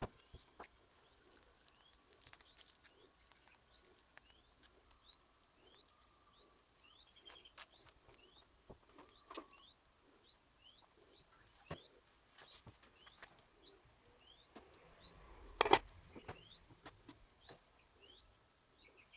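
A bird calling a short rising chirp over and over, about one and a half times a second, with scattered faint clicks and one louder knock about three-quarters of the way through.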